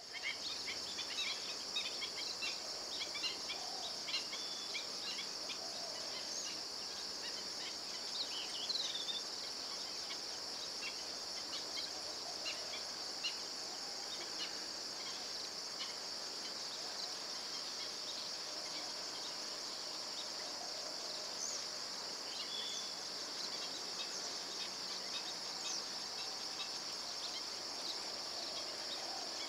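Steady high-pitched chorus of insects, with many short bird chirps scattered through it.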